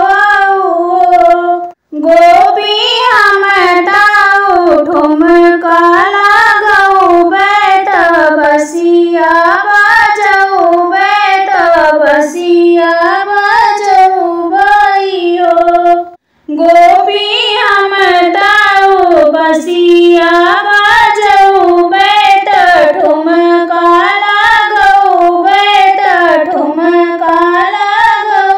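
A woman singing a sohar folk song unaccompanied in a high voice, with a wavering, ornamented melody. She breaks off briefly for breath about two seconds in and again just past the middle.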